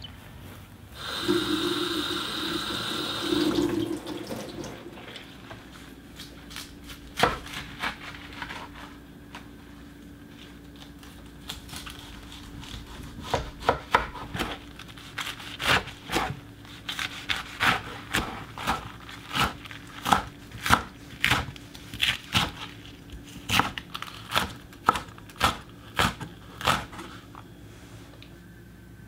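Kitchen knife chopping leafy greens on a wooden cutting board: sharp knocks, scattered at first and then fairly regular at about two a second through the second half. A loud rush of noise lasts about three seconds near the start.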